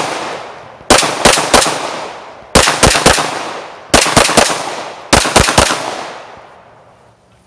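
Semi-automatic pistol fired at close range in four quick strings of three shots, each string a little over a second after the last. Each shot is followed by a long trailing echo, which fades out after the last string.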